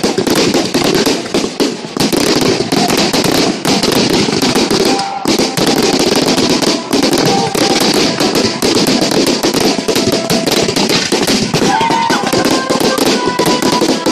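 Fireworks going off in a continuous barrage of rapid bangs and crackling, with music faintly underneath.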